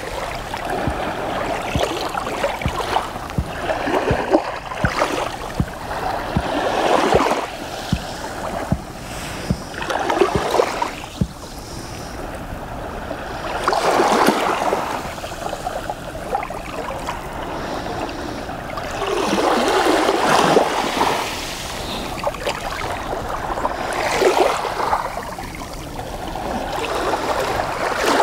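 Small Black Sea waves washing up and drawing back over a shell-covered sand shore, swelling every few seconds, with scattered small clicks in the first third.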